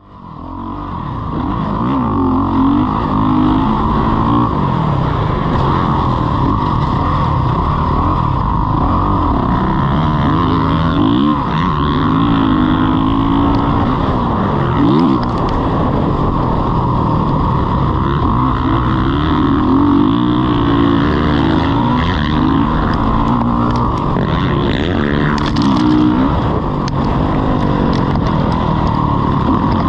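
Motocross dirt bike engine, heard from the bike being ridden, revving up and down again and again as the rider accelerates, shifts and backs off around the track. It fades in over the first second.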